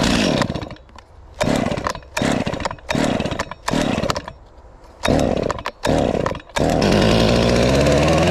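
Gas chainsaw being pull-started: several short bursts as the engine fires and dies, then it catches about six and a half seconds in and runs steadily.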